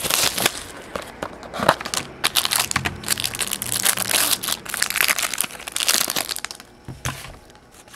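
Clear plastic wrap crinkling and crackling as it is torn open and a stack of trading cards is pulled out of a clear plastic bag. The crackling comes in quick irregular bursts and dies down near the end.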